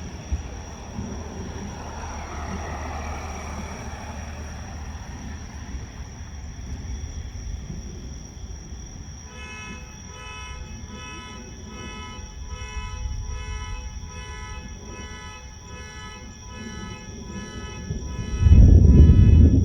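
Thunder: a loud, low boom breaks about a second before the end, over a steady low rumble of wind and sea. From about halfway in, a pulsing tone repeats about twice a second.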